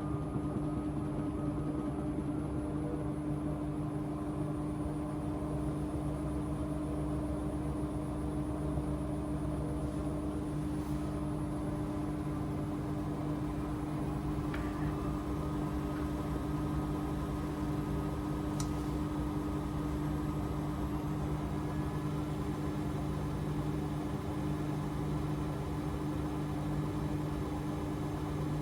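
AEG 8000 Series front-loading washing machine running at steady speed: an even motor hum with a faint whine that shifts slowly in pitch, without stops or reversals.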